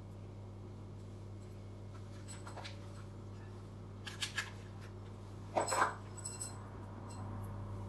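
Small clicks and taps of a plastic magnetic-eyelash case being handled, with a louder brief clatter about two-thirds of the way in, over a steady low hum.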